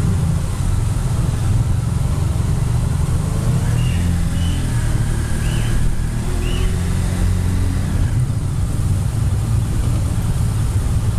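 Motorcycle engine running steadily as the bike rides, heard up close from the bike itself. A few brief high chirps sound midway through.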